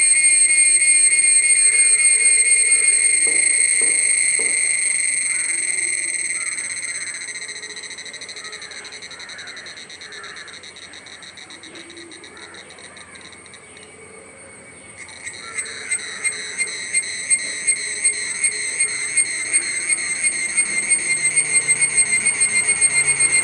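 Cicadas singing: a steady, shrill, high-pitched whine. It fades over several seconds, then swells back about two-thirds of the way through, pulsing about twice a second.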